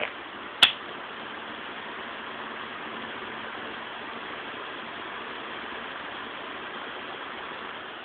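Galaxy pivoting box fan with three clear brown blades running steadily on its high speed, a constant rush of air over the hum of its freshly oiled motor. A single sharp click comes under a second in.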